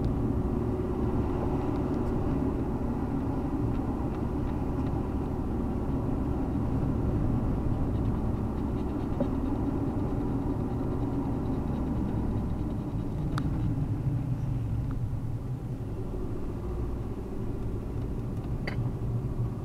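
Car engine and tyre noise heard from inside the moving car: a steady low rumble, with a couple of light clicks in the second half.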